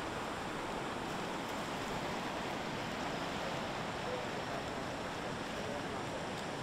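Steady wash of sea surf, waves breaking along the shore.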